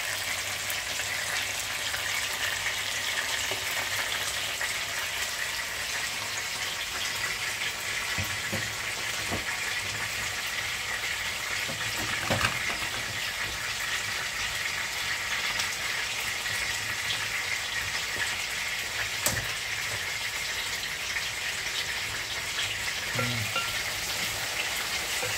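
Whole red sea bream frying in oil in a pan, giving a steady sizzle, with a couple of faint knocks.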